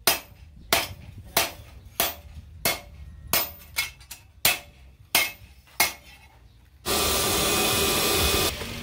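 Hammer striking a steel knife blade on a steel stake anvil: about ten sharp metallic blows at a steady pace of roughly one and a half a second. About seven seconds in, a loud steady rush of air starts: a small electric blower blowing into a charcoal forge.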